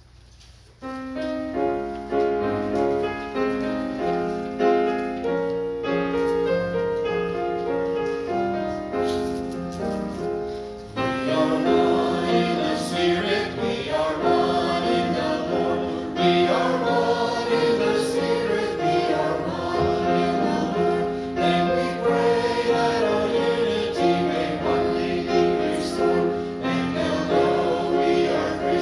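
A hymn: a keyboard plays held chords as an introduction, then after about eleven seconds the congregation joins in singing along with the accompaniment.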